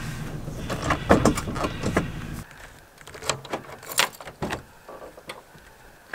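Ford E-Series camper van driving, heard from the cab: a steady low engine and road rumble with small rattles. About two and a half seconds in the rumble stops, and a series of clicks and knocks follows as the van's rear door is unlatched and swung open, loudest about four seconds in.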